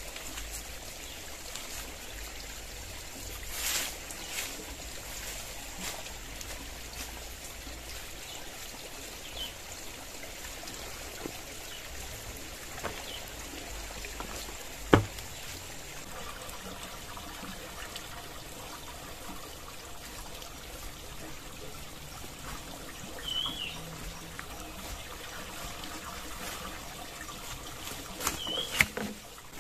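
Water trickling steadily. A single sharp knock comes about halfway through, and a couple of short bird chirps sound near the end.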